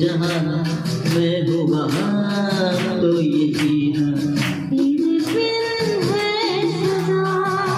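A man singing a song into a handheld microphone over instrumental backing music with a steady beat, holding long wavering notes.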